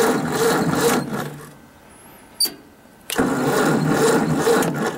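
The engine of a 1956 Ford tractor being cranked slowly by its 6-volt starter on a cold start, turning over at about three pulses a second without catching. The cranking stops about a second and a half in, a single click follows, and the cranking starts again about three seconds in.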